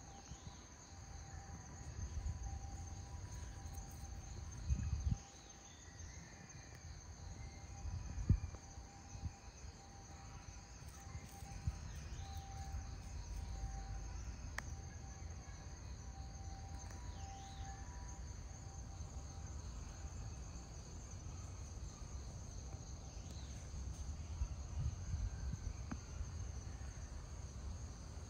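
Steady high-pitched chorus of insects calling, running on without a break, with a low rumble underneath and two short thumps about five and eight seconds in.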